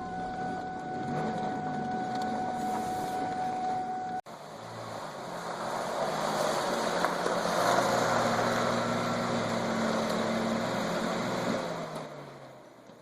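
Car engine running, with an abrupt cut about four seconds in; it comes back louder and fades out near the end.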